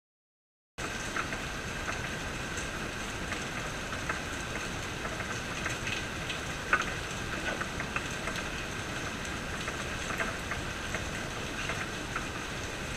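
Rain falling steadily, with scattered drops tapping on nearby surfaces and one louder tap about seven seconds in. It begins suddenly about a second in.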